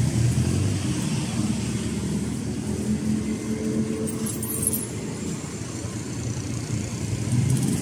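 A motor vehicle's engine running steadily as a low hum, growing a little louder near the end.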